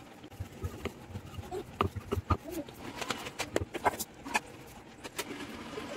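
Wooden rolling pin rolling out wheat-flour dough on a wooden chapati board, with a string of irregular knocks and taps of wood on wood.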